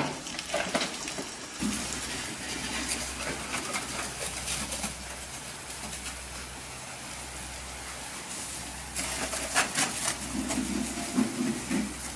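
Water jet from a hose hissing against a lorry's cab over a steady low engine hum. In the first second there are a few knocks as a livestock trailer's rear door is swung shut.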